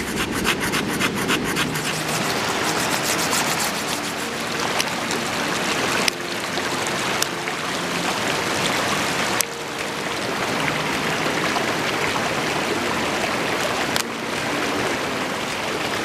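Steady rushing of a shallow river over rocks. For the first couple of seconds there are quick, evenly repeated scraping strokes as a strip of wood is rubbed on a stone. There are a few abrupt jumps in the sound later on.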